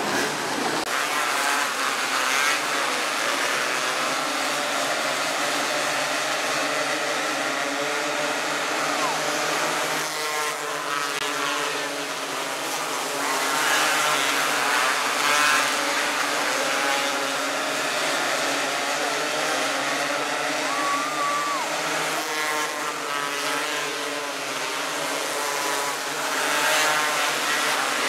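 A pack of 270cc micro sprint cars racing on a dirt oval, several small engines revving up and falling off together as they go through the turns.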